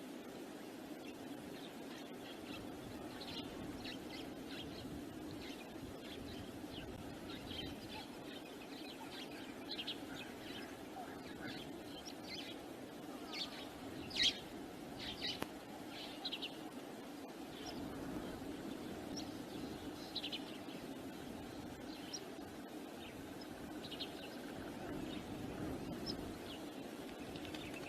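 Wild birds chirping in short, scattered high calls, busiest in the middle, over a steady low rush of wind.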